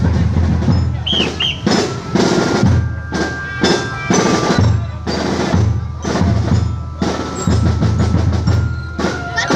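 Ground firework burning with rapid crackling and popping, coming in repeated loud surges.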